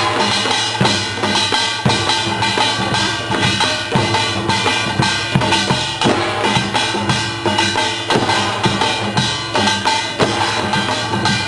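Korean pungmul percussion ensemble playing a fast rhythm: dense drum strokes over a steady metallic ringing.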